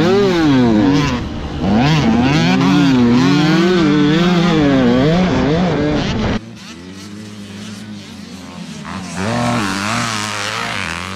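Dirt bike engine heard on board, its pitch rising and falling repeatedly as the rider revs and shifts around the track. About six seconds in it gives way to quieter dirt bike engines heard from beside the track, one revving up near the end.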